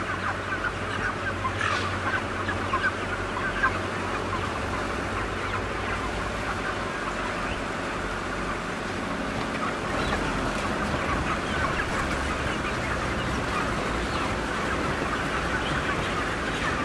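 A dense flock of broiler chickens, many overlapping short clucks and squawks running without a break, over a steady low hum of machinery from the mechanical chicken catcher gathering them.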